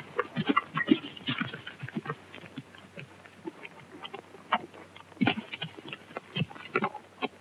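Hoofbeats of a horse scrambling over rough, steep ground: irregular knocks and thuds in uneven clusters, not an even gait rhythm.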